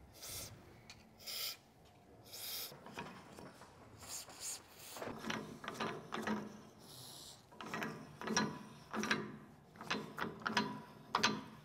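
Several short hisses of an aerosol lubricant spray, then the threaded lifting pad on a two-post lift arm being turned by hand, with metal rubbing and scraping in short strokes on its thread.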